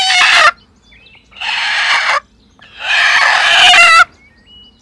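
A hen sitting on her straw nest gives three harsh, screechy calls, angry at a hand reaching in to check under her for eggs. The last call is the longest.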